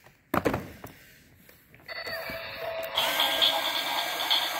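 A plastic toy car knocks once on the wooden floor. About two seconds in, a battery-powered toy car's electronic sound effect starts through its small speaker and runs on as a steady, rhythmically pulsing sound.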